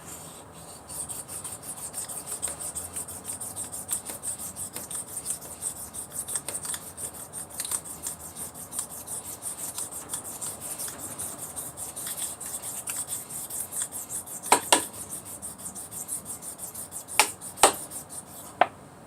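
Metal hair-clipper blade rubbed back and forth on a 1,000-grit Japanese water stone in quick, even sharpening strokes. A few sharp clicks come near the end, and the rubbing stops just before it ends.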